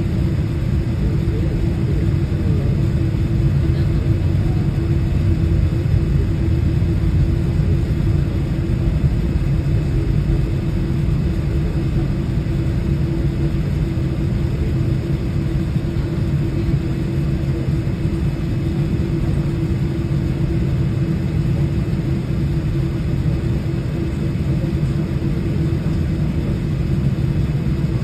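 Steady low rumble inside the cabin of a jet airliner taxiing on the ground, with a steady hum running through it.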